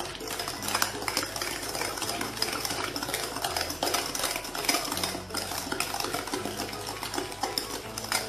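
A spoon beating a thick egg, sugar and honey batter in a glass bowl, with fast, continuous clicking and scraping against the glass as the set honey is worked in until it dissolves.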